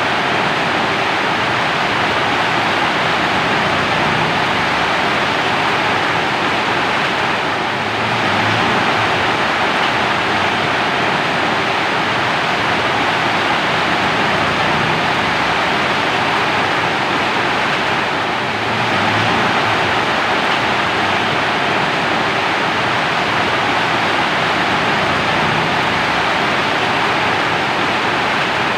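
Steady heavy rain falling, a dense, even hiss, with a slight dip in level about every ten seconds.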